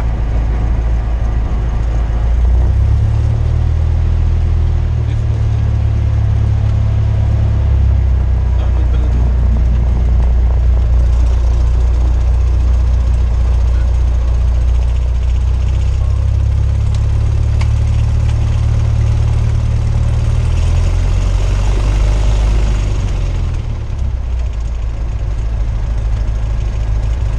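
Cessna 172R's four-cylinder Lycoming engine and propeller running, heard inside the cabin as a loud steady drone. Its note steps up a couple of seconds in and drops back near the end.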